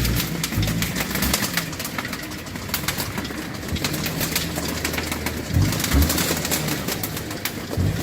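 Car engine running with a broken, disintegrating auxiliary drive belt, which makes an irregular rapid clicking and slapping over the engine noise.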